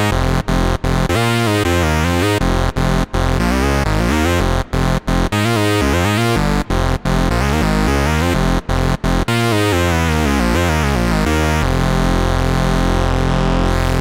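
Moog Subsequent 25 analog synthesizer playing a thick lead patch: quick phrases of notes with brief gaps between them, then one long held low note for the last couple of seconds.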